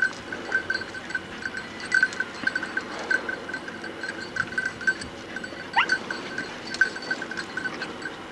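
A small bell clinking irregularly, several strikes a second, at one steady pitch. About six seconds in there is one short rising call.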